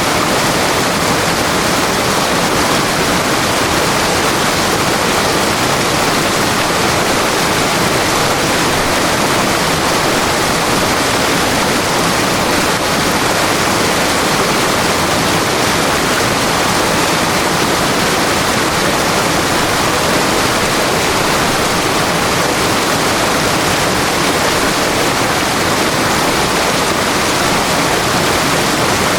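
River water rushing steadily over rocks: a constant, even rush of flowing water that never changes.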